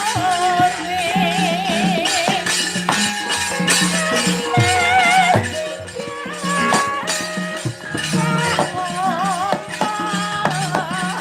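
Javanese gamelan accompanying a wayang kulit shadow-puppet play: held metallophone and gong tones under a wavering melody with wide vibrato, cut through by sharp metallic clatters of the kind the puppeteer's kecrek plates make.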